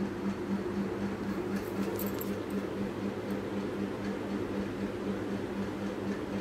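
A steady low hum that pulses about four times a second runs under the stirring of egg-and-milk batter in a steel pan. A few faint metallic clinks come about two seconds in, as a utensil touches the pan.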